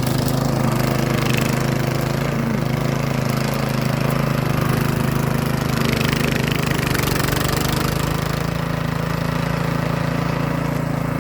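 Gas snow thrower engine running steadily while clearing wet snow, with a brief rise of hiss about six seconds in.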